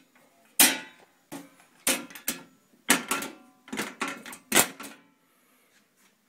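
A run of about nine sharp knocks at uneven intervals over some four seconds, like hard objects being struck or set down.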